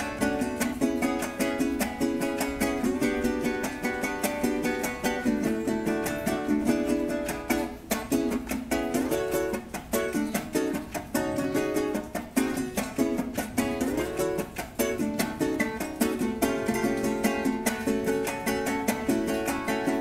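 Venezuelan cuatro strummed in a fast, even rhythm, playing an instrumental gaita passage.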